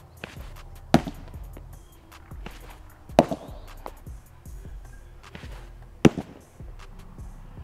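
A tape-wrapped wiffle ball smacking into a pitching target three times, about two and a half seconds apart, each sharp hit followed by a smaller rattle. Background music plays underneath.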